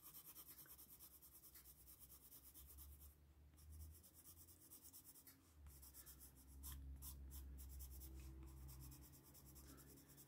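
Faint scratching of a watercolour pencil shading on paper in quick strokes, a little louder for a couple of seconds past the middle.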